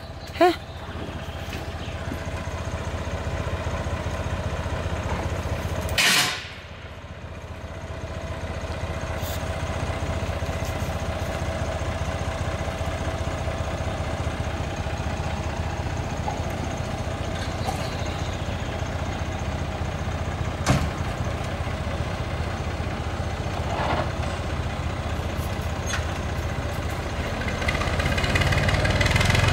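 Farm tractor engine running steadily, growing louder over the last two seconds as the tractor moves off. A brief loud rushing noise about six seconds in.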